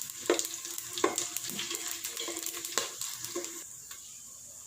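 Whole spices (coriander seeds, fennel, cloves, cinnamon sticks, peppercorns, cardamom) sizzling in hot sunflower oil in a pot as they are stirred, with a few sharp clicks of the stirring. The sizzle grows quieter after about three seconds.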